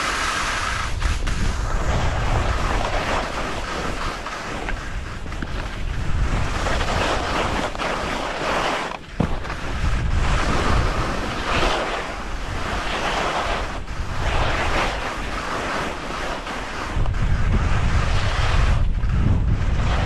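Skis hissing over snow in repeated surges, under heavy wind buffeting on the camera microphone.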